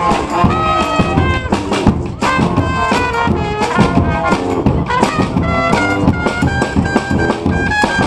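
Street brass band playing: saxophones, trumpet and low brass over a steady percussive beat. A high trumpet-range note is held through the last couple of seconds.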